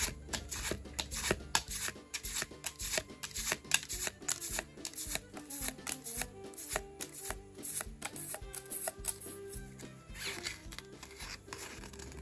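Pokémon trading cards being flipped through by hand, each card slid off the front of the stack with a quick, sharp snap, many in quick succession and irregularly spaced, with a longer sliding rub about ten seconds in.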